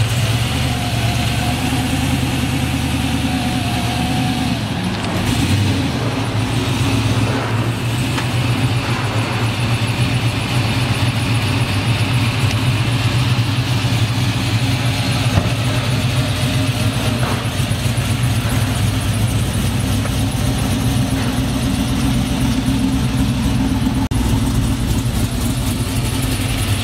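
Chevrolet Chevelle SS engine running at idle with a steady, deep rumble.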